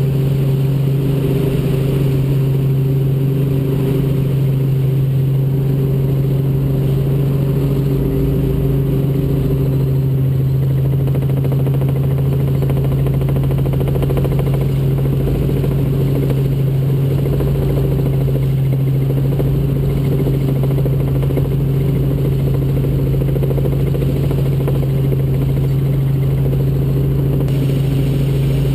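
Robinson R44 Raven II helicopter in cruise flight, heard from inside the cabin: the Lycoming six-cylinder engine and rotors make a loud, steady drone with a strong low hum.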